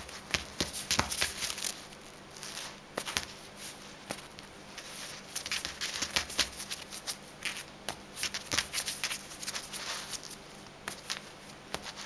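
A feather toy rustling and scraping across the floor as a kitten swats, claws and grabs at it. The sound is an irregular run of short scratches and swishes, coming in flurries.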